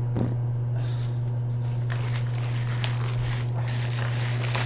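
A few scattered scuffs and knocks as a piece of furniture is tugged and shifted. Under them runs a steady low hum.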